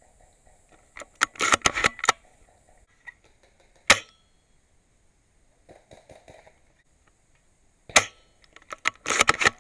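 Airsoft MB03 bolt-action sniper rifle firing two sharp single shots about four seconds apart. Quick runs of rattling mechanical clicks come about a second in and again near the end, with a few fainter clicks in between.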